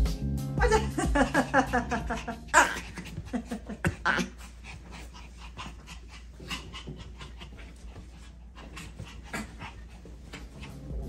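Two Pomeranians playing on a bed: quick pitched play vocalisations in the first couple of seconds, then quieter scuffling and rustling on the bedding.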